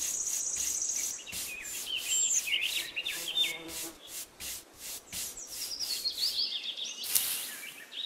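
A paintbrush sweeping over sand in short, repeated scratchy strokes, about three a second, with a stronger stroke near the end. Birds chirp in the background.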